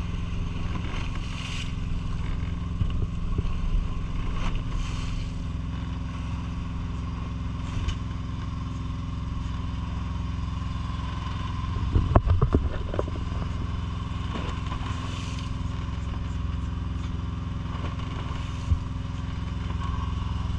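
Fishing boat's engine running steadily, with water washing at the hull now and then and a short clatter of knocks about twelve seconds in.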